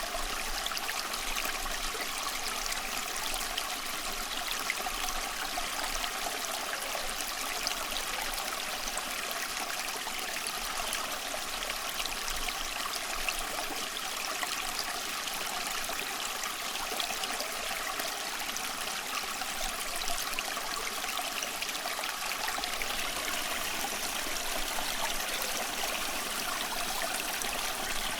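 Flowing water from a stream, running and trickling in a steady, even rush with no breaks.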